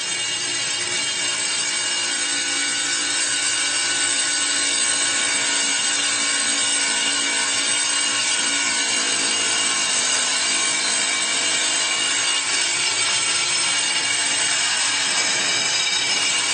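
Power saw cutting a granite tile, running steadily with a high, even grinding whine.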